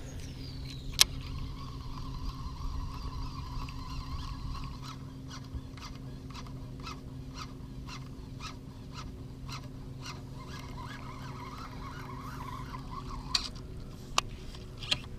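Fishing reel during a cast and retrieve: line whizzes off the spool, and a sharp click about a second in marks the reel going into gear. Then comes a steady retrieve, a wavering whir with a regular ticking a little over twice a second, over a low steady hum. A few sharp clicks come near the end.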